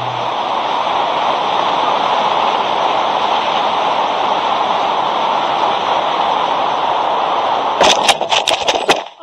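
Steady rushing of air past an FPV fixed-wing plane's onboard camera as it glides in low. Near the end comes a quick run of sharp knocks and scrapes as the plane touches down and skids onto the grass.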